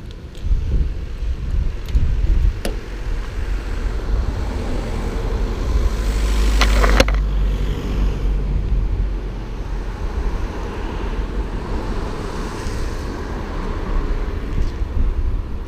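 Car engine and road noise, a steady rumble while the car is driven, with a louder rushing swell that builds and cuts off about seven seconds in.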